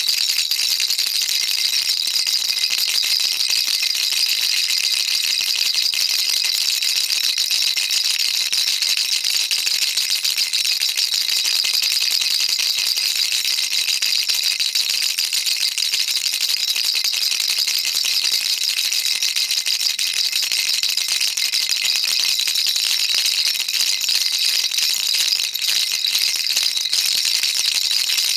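Baby rattle shaken continuously: a steady, unbroken, high-pitched rattling with no pauses.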